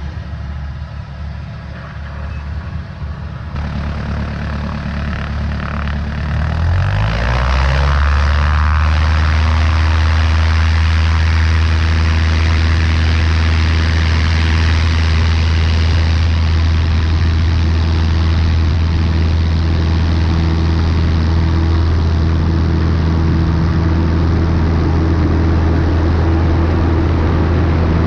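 Cessna 152's four-cylinder Lycoming engine and propeller, heard from the wing, running at low power and then rising in pitch over a few seconds as the throttle is opened. About seven seconds in it settles into a steady, loud drone at full takeoff power.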